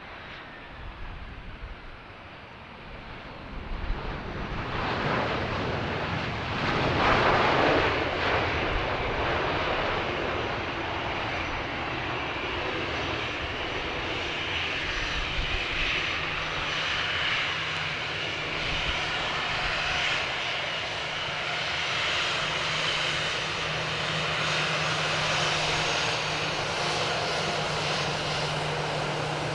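Jet airliner's engines passing close: the noise builds over the first few seconds, is loudest about seven seconds in, then carries on as a steady engine noise with a low hum underneath.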